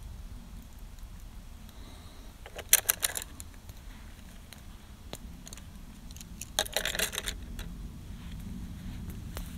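Small hard objects, paint tubes and painting gear, clinking and rattling in a wooden paint box in two short bursts, about three seconds in and again near seven seconds, over a steady low rumble.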